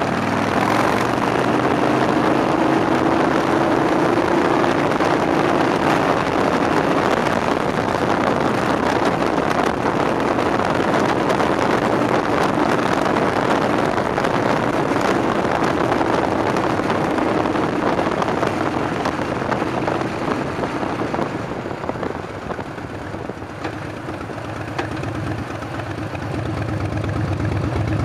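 Harley-Davidson V-twin engine running at road speed, with a steady wind rush across the bike-mounted camera's microphone. About three-quarters of the way through the bike slows, the wind drops away, and near the end the engine settles to a low idle.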